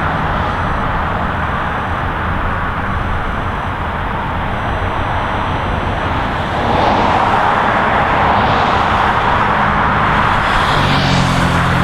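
Steady highway traffic noise of cars passing, growing louder about two-thirds of the way through as a vehicle goes by close, with the low hum of a heavier vehicle's engine joining near the end.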